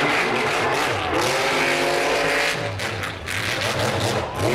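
Mega mud truck's big engine running hard at high revs as it tears across a dirt course, easing off about three seconds in and climbing in pitch again near the end.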